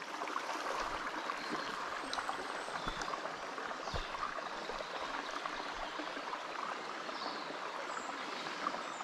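River water flowing steadily, a constant rushing hiss of the current.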